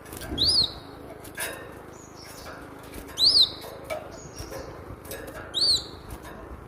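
Cinereous tit (glatik batu) calling: three loud, high arched notes about two and a half seconds apart, with softer short high notes and a few sharp clicks between them.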